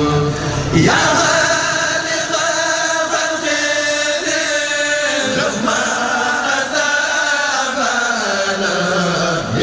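Voices chanting an Arabic religious poem, a Mouride khassida, in long drawn-out melodic lines that slide in pitch.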